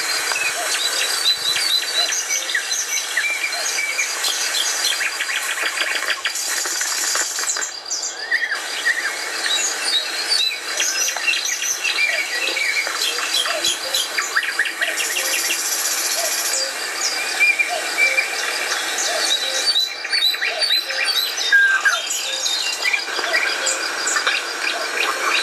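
Chorus of several songbirds singing and chirping together, many short high calls overlapping, with a fast even trill of repeated notes running through the first several seconds.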